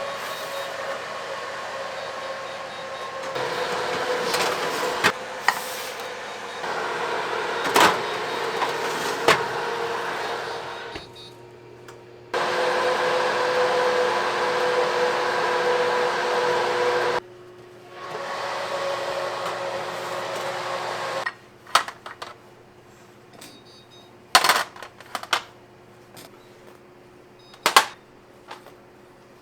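A small electric motor running with a steady whine in three long stretches, each stopping abruptly; then several sharp clicks and knocks.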